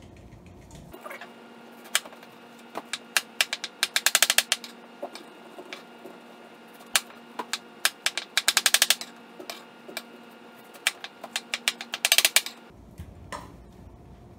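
Chef's knife chopping pineapple on a plastic cutting board: scattered single knocks and three quick runs of rapid taps, about four seconds apart.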